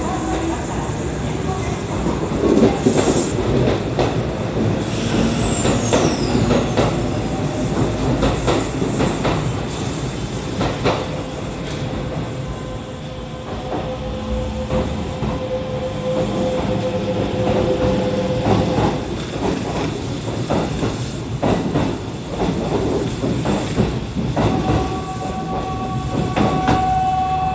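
Kintetsu electric trains running through the station platforms: the 8400-series local pulling out, then the 22000-series limited-express set moving along the next track. There is a steady rumble with wheels clacking over rail joints, a falling high wheel squeal about five seconds in, and steady whining tones near the end.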